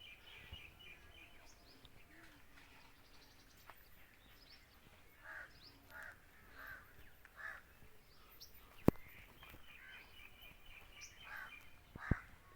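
Faint birds calling: high chirping throughout, with four short, harsh calls in a row about halfway through. Two sharp knocks, the loudest sounds, come near the end.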